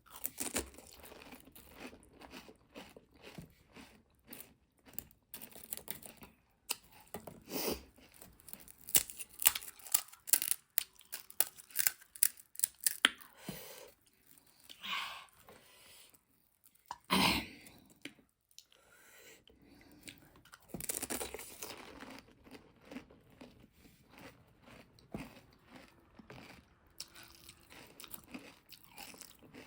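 Close-up eating sounds: pani puri shells crunching between the teeth and wet chewing, with a run of loud crunches in the middle.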